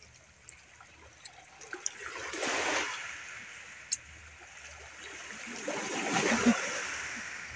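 Small sea waves washing onto a rocky shore: two swells of rushing water, the first building about two seconds in and the second near the end.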